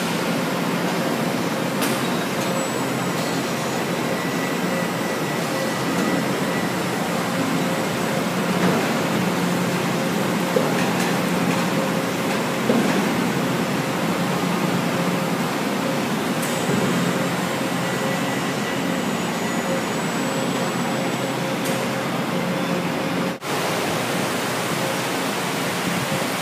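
Steady drone of heavy industrial shop machinery, with a low hum and a faint steady high tone, and a couple of small metallic ticks. The drone breaks off for an instant near the end.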